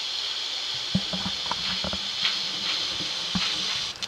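Steady steam hiss from the small speaker of an N-scale model steam locomotive's LokSound DCC sound decoder as the engine creeps forward, with scattered soft clicks.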